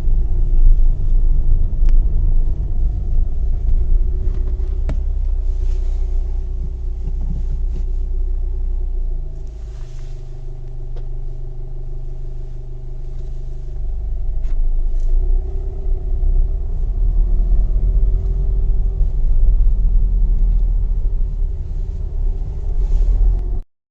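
Car driving along a road: a steady low rumble of road noise and engine, with a few faint ticks. It cuts off suddenly near the end.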